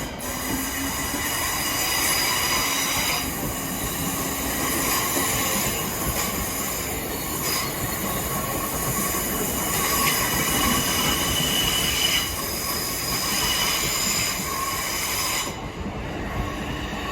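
Class 465 Networker electric multiple unit going by, a steady run of rail noise with several high squealing tones held level over it. The highest squeal falls away about fifteen seconds in.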